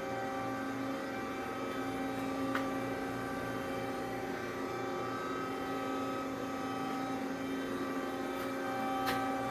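Steady electric hum with several held tones from an Amada RG-100 press brake's hydraulic pump motor running idle, the ram not moving. Two light clicks, about two and a half seconds in and near the end.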